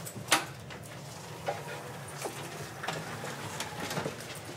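Movement through a doorway by a power wheelchair and a service dog: one sharp click about a third of a second in, then scattered light clicks and taps over a low, steady hum.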